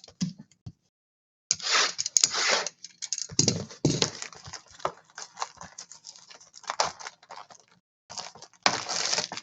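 Trading cards being handled and shuffled: three longer bursts of rustling, sliding card stock, with scattered clicks and taps between them.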